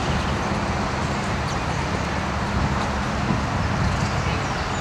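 Steady low rumble of vehicle noise, with a faint steady hum that weakens about three seconds in.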